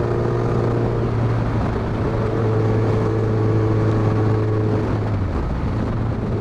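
Honda CBR1100XX Blackbird's inline-four engine running steadily while the motorcycle cruises on the road, with a constant rushing noise underneath. Its note shifts a little about a second in and again about five seconds in.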